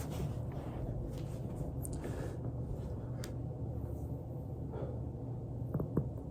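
Body rolling on a foam roller with a steady low rumble, and a single short pop near the end: a joint cracking.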